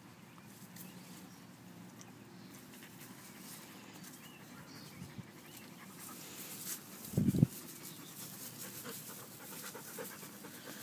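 German shepherd panting, with a brief low thump a little past the middle.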